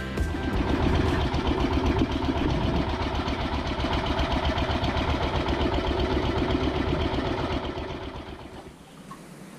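A fishing boat's engine running with a steady, fast-pulsing rumble, fading out near the end.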